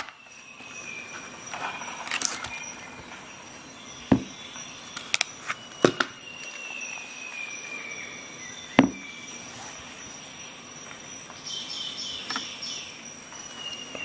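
Sharp clicks and knocks of a Leatherman Expanse folding multi-tool knife being handled and set down. There is one loud click about four seconds in, a quick cluster of clicks around five to six seconds, and another near nine seconds. Underneath runs a faint steady high whine, with slow falling whistle-like tones every few seconds.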